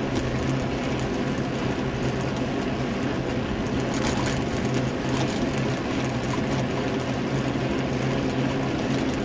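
Bicycle riding along a tarmac road, heard from a camera mounted on the bike: steady wind and tyre-on-road noise with a constant low hum and a continuous light rattle of fine clicks.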